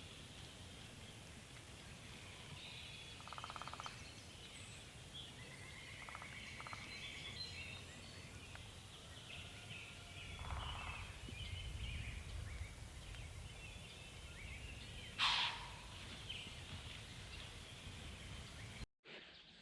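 Quiet spring woodland with songbirds chirping and singing throughout, a few short lower calls mixed in, and one louder call about fifteen seconds in. The sound cuts out abruptly near the end.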